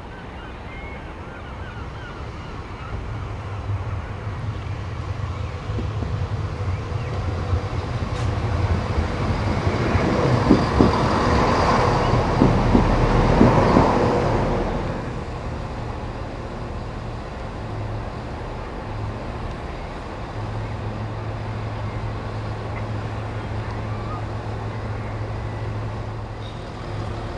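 Southern Class 171 Turbostar diesel multiple unit approaching and running into the platform, its diesel engines and wheels loudest about ten to fifteen seconds in. The engines then idle with a steady low hum.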